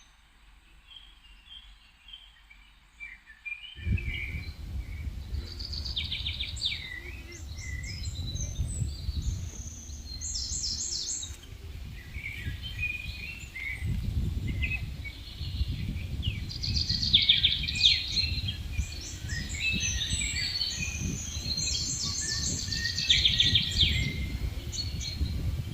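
Small forest songbirds singing and calling in short chirps and rapid trills. From about four seconds in, wind buffets the microphone with a low rumble.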